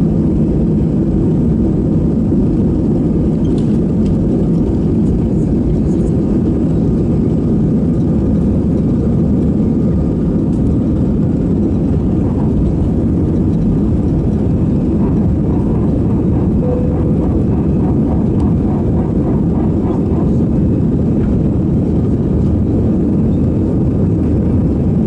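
Airbus A320-200's jet engines at takeoff thrust, heard from inside the cabin over the wing: a loud, steady rumble through the end of the takeoff roll, liftoff and initial climb.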